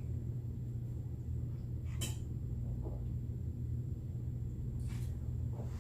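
Room tone: a steady low hum, with two brief soft clicks about two and five seconds in.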